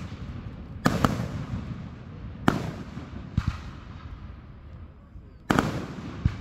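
Aerial fireworks display: about five booms from firework shells, each a sharp bang that trails off in a rolling echo. The loudest come about a second in, at about two and a half seconds, and near the end.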